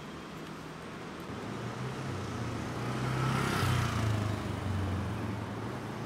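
A motor vehicle passes on the street, its low engine hum and tyre rush building to a peak about three and a half seconds in, then fading away.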